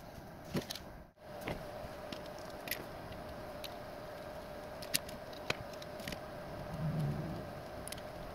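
Scattered small clicks and taps as 3D-printed ABS parts and a small screwdriver are handled while a screw is driven in, over a steady low hum.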